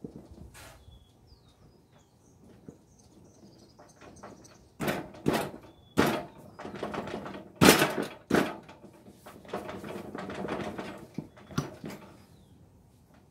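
Metal clanks and knocks from parts being worked onto the rear axle of a riding lawn mower. A cluster of sharp strikes comes in the middle, then some rattling and one more knock near the end.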